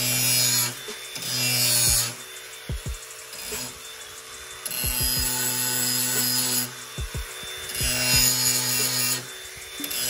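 DeWalt cordless angle grinder with a flap disc sharpening the cutting edge of a steel lawn mower blade held in a vise. It comes in several passes: a loud hissing scrape each time the disc bites the edge, with the grinder's motor whining steadily between passes.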